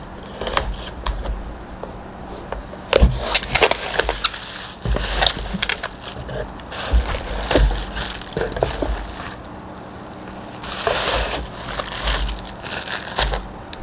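A knife slitting the tape on a cardboard box, then bubble wrap being pulled open and handled, crinkling and crackling in irregular bursts with sharp clicks.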